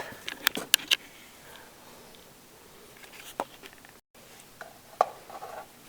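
Sharp clicks and light scrapes of a screwdriver prying at the spring-loaded motor brush of an electric snow thrower. There is a quick cluster in the first second, then single clicks about three and a half seconds in and near five seconds.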